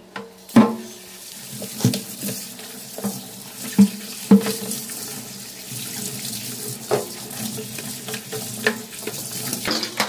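Kitchen tap running and splashing water over a plastic washing-machine pulsator in a stainless steel sink, with several sharp knocks as the plastic disc is handled and bumped in the sink.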